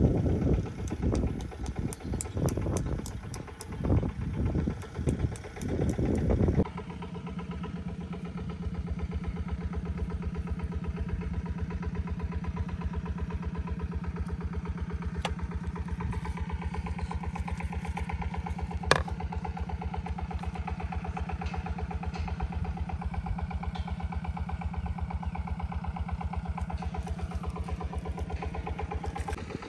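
An engine running steadily with a rapid, even pulse. For about the first six and a half seconds it is drowned by louder, irregular rumbling surges, which then stop abruptly. A single sharp click comes about nineteen seconds in.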